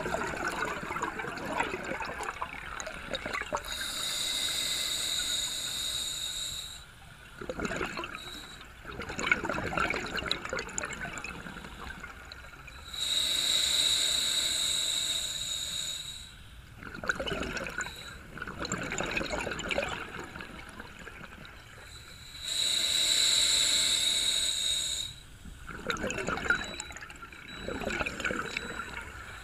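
Scuba diver breathing underwater through a regulator: three slow breaths, each a hiss of inhaled air lasting a few seconds, with gurgling, bubbling exhaust between them.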